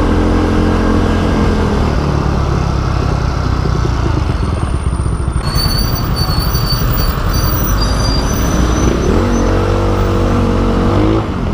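Motorcycle being ridden on the road, its engine running steadily; about nine seconds in a pitched tone rises and holds for a couple of seconds.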